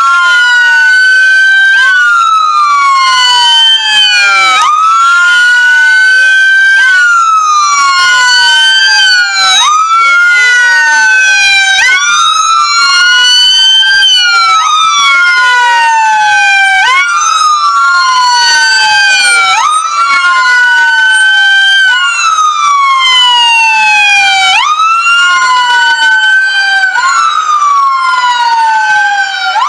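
Police car sirens wailing in a steady rise-and-fall, one sweep about every two and a half seconds. More than one siren sounds at once, out of step with each other.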